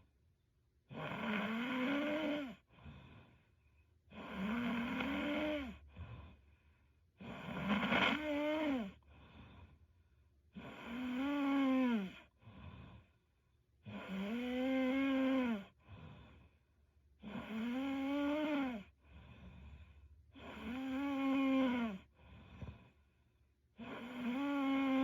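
A young woman snoring in her sleep: about eight regular snores, one every three seconds or so, each a drawn-out pitched snore that rises and falls in pitch, followed by a fainter short breath.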